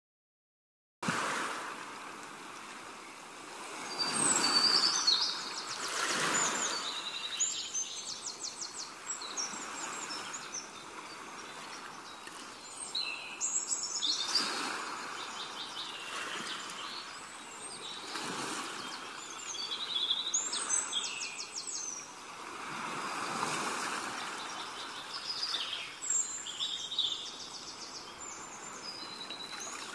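Small birds chirping and trilling again and again over a rushing background noise that swells and fades every few seconds. It starts abruptly about a second in.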